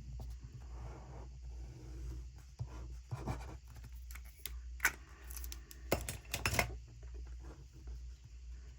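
Small desk handling noises as a paper picture is glued into a planner with a glue pen: soft rubbing and rustling of paper, with a few sharp clicks and taps about halfway through.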